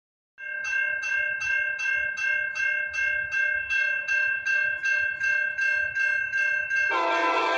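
Railroad grade-crossing bell ringing in steady strikes, about two and a half to three a second. Just before the end, the approaching passenger train's horn starts to blow, a held chord that drowns out the bell.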